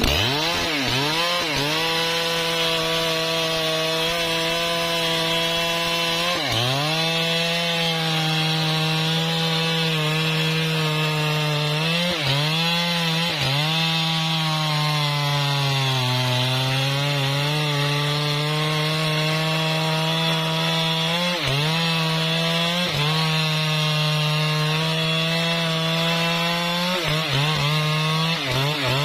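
Husqvarna 3120 XP two-stroke chainsaw running at high revs while cutting trembesi wood. Its pitch dips briefly several times as the chain loads up in the cut, most deeply about halfway through.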